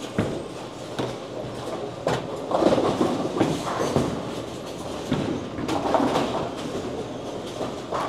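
Bowling centre din: balls rolling down the lanes with a low rumble, and pins clattering again and again across the neighbouring lanes, with louder crashes about two and a half seconds in and again near six seconds.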